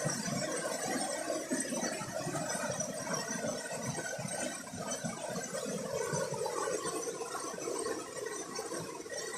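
Steady rush of water from a small jungle waterfall.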